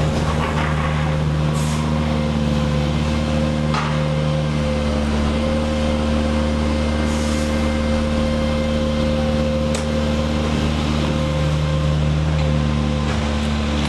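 Heavy vehicle engine running steadily, a loud low drone, with a few brief hisses and clicks over it.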